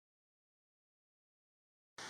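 Digital silence: a dead gap in the sound track, with a loud, even hiss cutting in abruptly right at the end.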